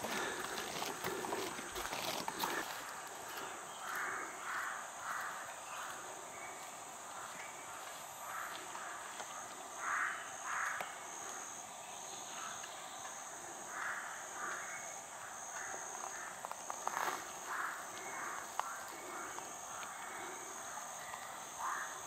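Jungle ambience: a steady high insect drone with an evenly pulsing trill, and an animal call in short notes, two or three at a time, every few seconds.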